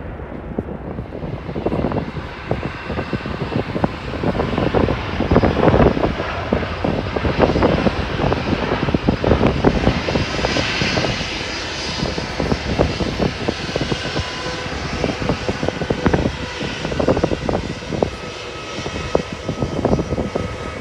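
Four-engined Singapore Airlines Airbus A380 taking off at full thrust: a continuous crackling jet rumble that swells and ebbs as the airliner lifts off and climbs away. The first second or so may still belong to a Boeing 777's climb-out.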